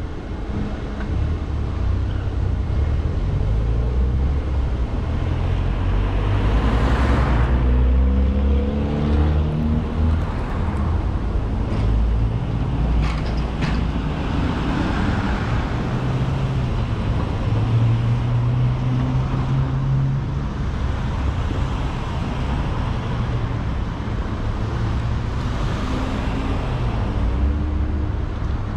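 Car driving on city streets: a steady engine and road-noise rumble whose pitch steps up and down as it speeds up and slows. There is a louder whoosh about seven seconds in and a few sharp clicks around the middle.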